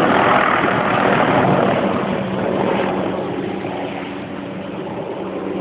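Helicopter running overhead, a steady rush of rotor and engine noise with a constant low hum; it eases off a little midway and grows again near the end.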